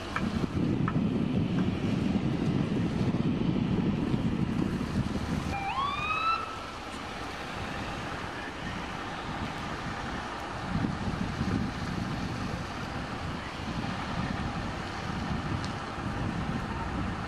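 Vehicles passing on a wet road with wind on the microphone, loudest in the first six seconds; about six seconds in, an emergency vehicle's siren gives one short rising whoop. Further vehicles swell past later on.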